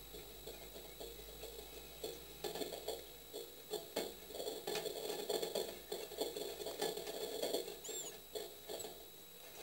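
Tit nestlings shifting about in the nest cup of a nest box, making soft rustling, scratching and tapping that gets busier from about two and a half seconds in. A short faint chirp comes near the end, and a faint steady high whine runs underneath.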